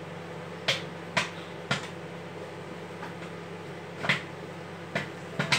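Microwave popcorn kernels popping inside a running Sanyo microwave oven: about six sharp, irregular pops over the oven's steady hum.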